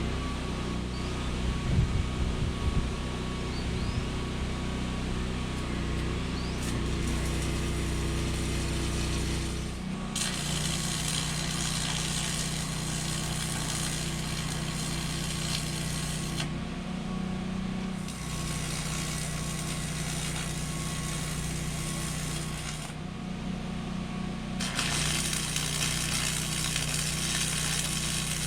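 AC stick-welding arc from a Lincoln AC 225 buzz box burning 6013 rods, sizzling in three runs of several seconds each starting about a third of the way in, over the steady hum of the generator engine powering it. A few knocks sound about two seconds in.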